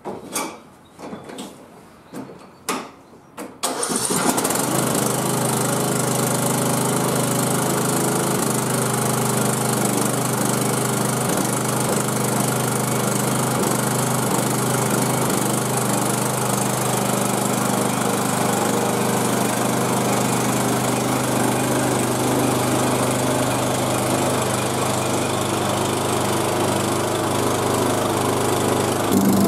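A few knocks, then about four seconds in the Cub Cadet 1170 lawn tractor's 17 hp single-cylinder Briggs & Stratton engine starts and runs steadily. This is its first run on a newly fitted carburetor, which replaced the one that was leaking fuel into the crankcase. Near the end the engine note gets a little louder.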